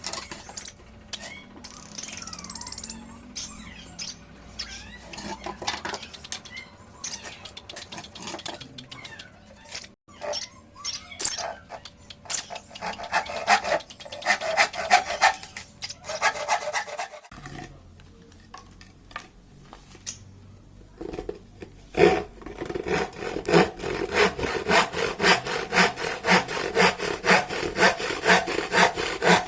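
Lovebirds chirping and clicking irregularly, then from about two-thirds of the way through a hand saw cutting wood in steady back-and-forth strokes, about two a second.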